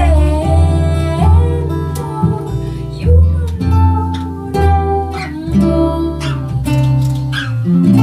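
A woman singing a folk song with classical guitar accompaniment and a double bass playing low, sustained notes underneath.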